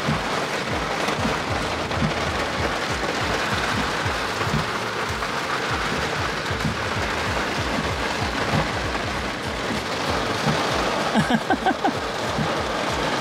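Heavy rain on a car's roof and glass: a steady hiss of downpour with many small taps of drops hitting the car. A few short, high tones sound briefly about 11 seconds in.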